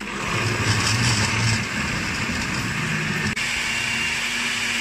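Oster countertop blender running, its motor and blades churning a jar of leafy greens, aloe vera and prickly-pear cactus in coconut water into juice. It starts at once, runs steadily, and has a brief break about three seconds in.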